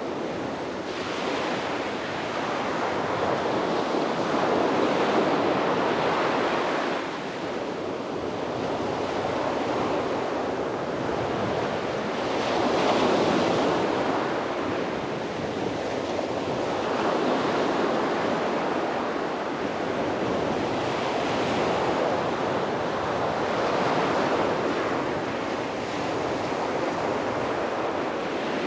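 Sea waves breaking and washing onto a beach, the surf swelling and falling back every few seconds.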